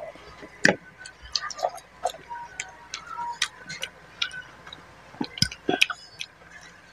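Close-miked eating sounds: irregular wet clicks and smacks from chewing a mouthful of rice and fish curry and from fingers mixing rice and curry on the plate.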